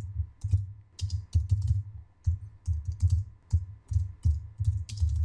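Typing on a computer keyboard: a run of quick, irregular keystrokes, about three a second, each with a dull low thump.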